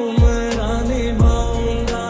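Bollywood-style Hindi song: a sung melody over a slow beat with deep bass kicks about once a second and light hi-hat ticks.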